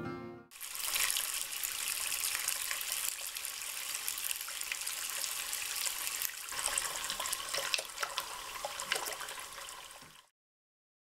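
Shallow stream trickling and flowing among snow and ice, with a brief break about six and a half seconds in. Guitar music fades out at the start, and the water cuts off suddenly near the end.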